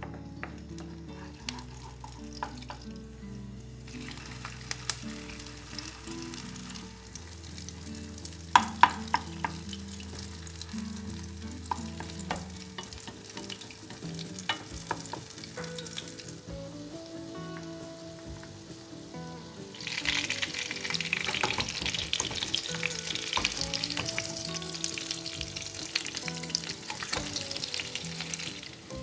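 Zucchini fritters shallow-frying in hot oil in a nonstick pan, sizzling steadily, with a few sharp knocks of a wooden spoon on the pan about nine seconds in. About twenty seconds in the sizzling becomes much louder as the fritters fry hard and bubble.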